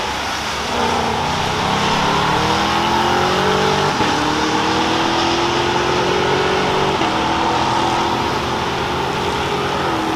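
A car accelerating hard down a drag strip at full throttle, its engine pitch climbing steadily and dropping at each upshift, with shifts about every three seconds as it pulls away.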